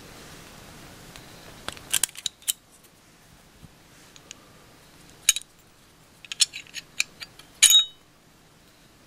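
Small metal clicks and clinks from the slide, recoil spring assembly and barrel of a Walther PPQ M1 9mm pistol being taken apart by hand. They come in short clusters about two seconds in and around five seconds in, then a longer run near the end that closes with the loudest clink.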